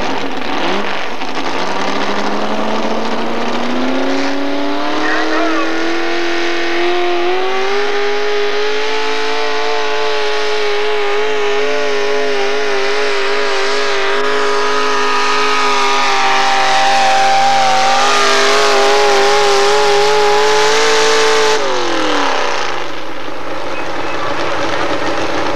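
Modified four-wheel-drive pulling truck's engine revving up as the truck pulls a weight-transfer sled, then holding at high revs for about thirteen seconds. About 21 seconds in the throttle comes off abruptly and the revs fall away to a low idle.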